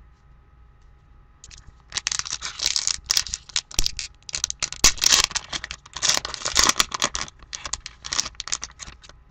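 A trading-card pack wrapper being torn open and crinkled by hand, a run of crackly tearing and rustling that starts about two seconds in.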